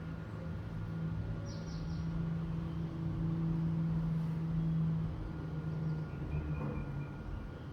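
A low steady hum that grows louder over several seconds and then fades, with a few faint high chirps.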